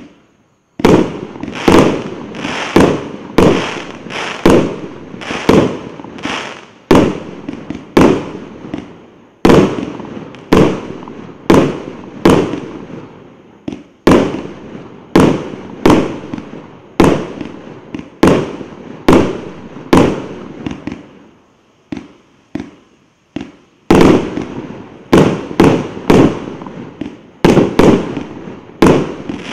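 A 49-shot, 1.25-inch fireworks cake firing shot after shot, about one to two sharp bangs a second, each with a short fading tail. There is a quieter stretch about three-quarters of the way through before the rapid shots resume.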